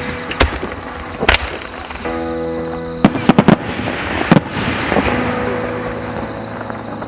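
Aerial firework shells bursting: a string of sharp bangs, with a quick cluster of several about three seconds in, each followed by crackling, over background music.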